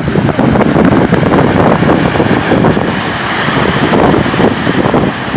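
Loud wind buffeting the microphone over the rush of ocean surf.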